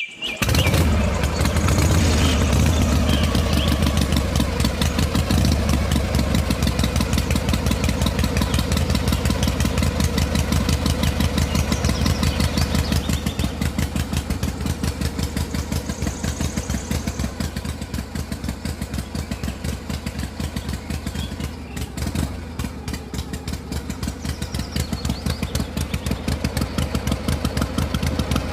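A small engine-like motor on a miniature DIY water pump starts suddenly and runs steadily with a rapid, even pulsing beat, a little quieter for a few seconds in the latter half.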